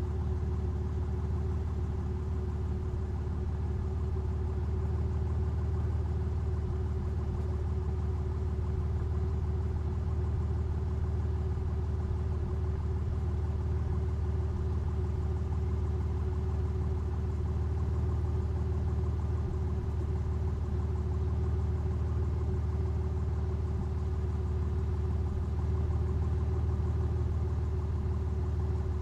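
Aston Martin engine idling steadily, a low, even rumble with no revs or changes.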